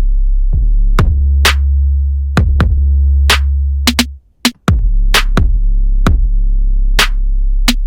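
Programmed electronic kick drum and deep synth bass playing together: sharp kick hits in a syncopated rhythm over held low bass notes that change pitch. Both drop out briefly about four seconds in, then come back.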